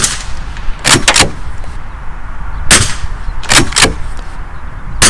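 Blaser R8 with its rimfire conversion unit in .22 Long Rifle, fitted with a sound moderator, being fired: a series of sharp cracks, several of them coming in pairs about a quarter of a second apart.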